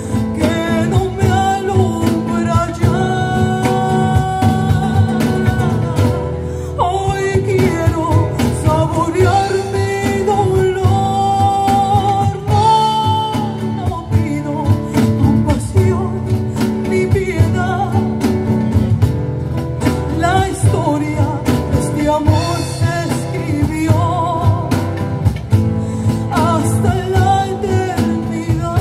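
Live acoustic band playing a slow ballad: a woman's voice sings long, held notes over two acoustic guitars, with a cajón keeping the beat underneath.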